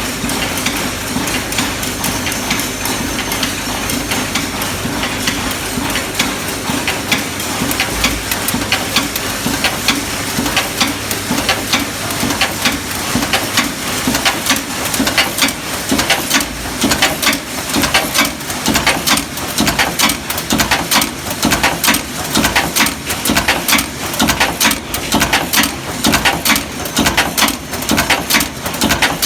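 FA15 cold heading machine forming M6 hex bolts: a fast, continuous run of stamping strikes over a steady machine hum, settling into about two loud strokes a second in the second half.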